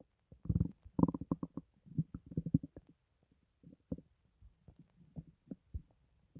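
Human stomach gurgling and bubbling: a quick run of rapid pops and gurgles in the first half, then sparser, softer pops.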